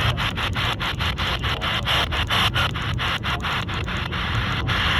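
Heavy radio static: a steady hiss that crackles and drops out several times a second. The received alert broadcast signal is breaking up.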